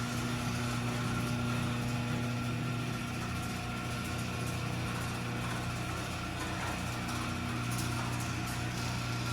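Electric garage door opener running through a cycle, raising the door. Its motor gives a steady, even hum.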